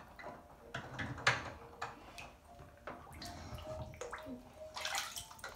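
Bathwater splashing and lapping in a tub as a child moves about and handles floating toys, with several short splashes, the sharpest about a second in.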